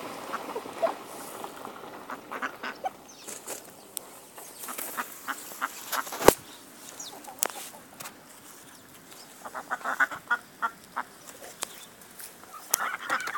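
A flock of chickens clucking in short calls that come in bunches, with a single sharp click about six seconds in.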